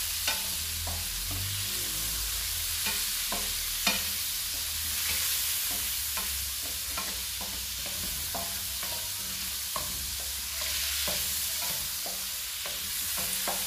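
Baby cuttlefish tentacles sizzling in olive oil in an aluminium frying pan. A wooden spoon stirs them, with scattered knocks and scrapes against the pan.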